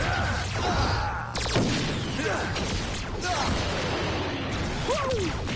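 Battle sound effects of a TV action scene: energy blasts and explosions crackling with sparks, with swooping sci-fi zaps over a low rumble. A sharp blast hits about a second and a half in.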